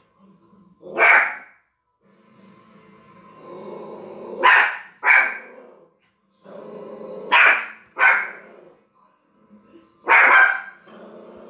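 Yorkshire terrier barking at a dog on the TV: six sharp barks, a single one, then two pairs, then a single one, a few seconds apart.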